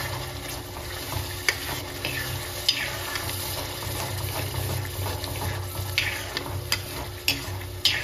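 A steel spatula stirs and scrapes a thick masala gravy frying in oil in a kadai, with a few sharp knocks of the spatula against the pan.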